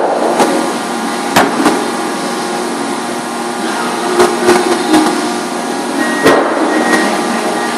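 Industrial paper-trimming machine running with a steady hum, broken by several sharp knocks as stacks of paper are handled on its table.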